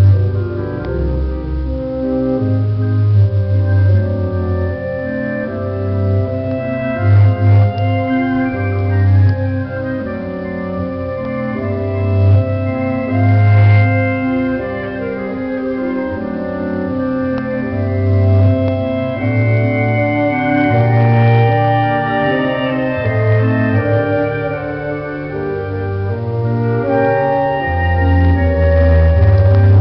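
Slow instrumental music of held chords that change about once a second over a steady bass line.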